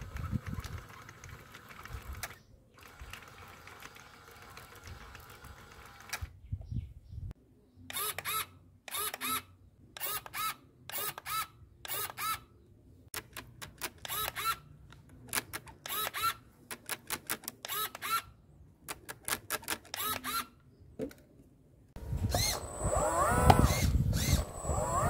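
A long irregular run of short, sharp mechanical clicks and ticks, several a second, then near the end a small electric motor whirring, its pitch rising and falling.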